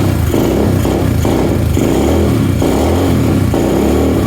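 Dirt bike engine running just after starting, its revs rising and falling unevenly as the throttle is blipped.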